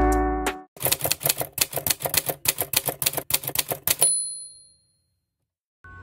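Typewriter sound effect: rapid keystroke clacks for about three seconds, ending in a single ding like a carriage-return bell.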